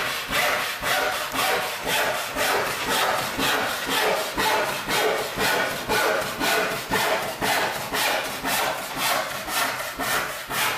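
Handsaw, an 8-point crosscut saw, cutting across a one-inch-thick rough white pine board with fast, even strokes, about two a second.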